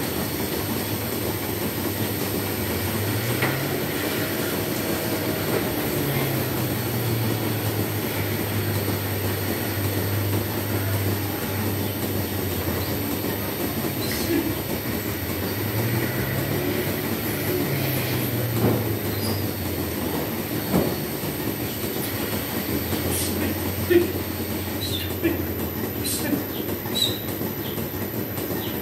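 Milking-shed machinery running steadily: a low mechanical hum that twice rises and falls in pitch, with a few sharp clanks in the second half.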